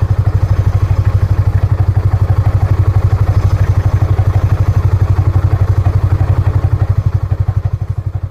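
A vehicle engine running steadily with a fast, even low pulsing, heard close up as the vehicle is driven; it eases off a little near the end.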